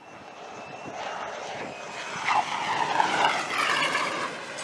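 F-35 fighter jet's engine noise growing louder as the jet comes in low over the deck to land. The level climbs over the first three seconds and stays loud, with a sweeping hiss as it passes.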